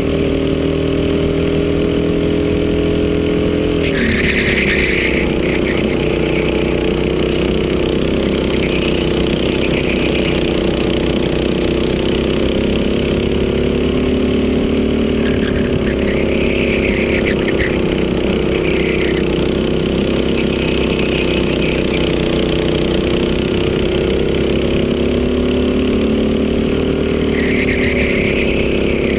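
Go-kart engine running hard at speed, heard from on board the kart. Its pitch drops sharply about four seconds in, then eases down and climbs again several times as the kart slows for corners and accelerates out. Brief high-pitched sounds come several times.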